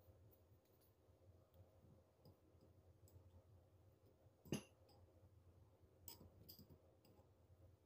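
Near silence with a faint low hum and a few light clicks and taps from dough and kitchenware being handled at the table, the sharpest about halfway through and two more soon after.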